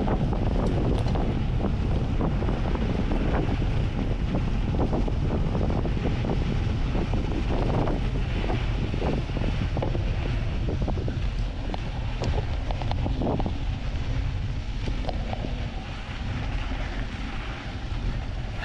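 Heavy wind rushing over the microphone as a mountain bike descends fast, with frequent rattling and knocking of the bike over the rough dirt trail.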